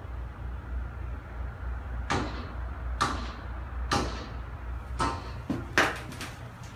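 Footsteps, five knocks about a second apart, over a steady low hum that drops away about five seconds in.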